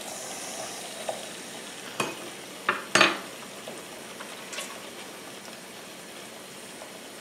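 Kitchen faucet running a steady stream into the sink while hands work shampoo lather into a wet kitten's coat. A few sharp clicks stand out about two and three seconds in, the loudest near three seconds.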